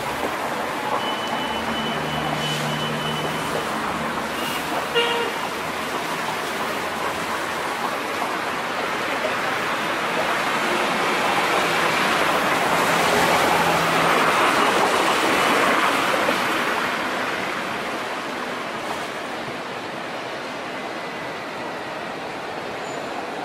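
Road traffic on a city street: cars and a bus going by, with the loudest pass swelling and fading around the middle. A short high beep in the first few seconds and a sharp click about five seconds in.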